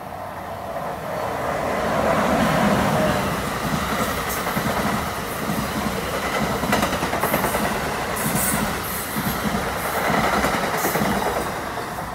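New Jersey Transit train of bilevel coaches passing close at speed without stopping. A steady rush of wheels on rail swells over the first couple of seconds, with rhythmic wheel clacking and sharp high squeaks and clicks from the trucks. It fades slightly near the end.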